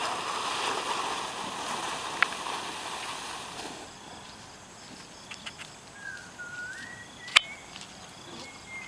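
Outdoor background noise, a steady rushing haze that drops away about four seconds in; afterwards a bird calls in short wavy chirps, and a single sharp click about seven seconds in is the loudest sound.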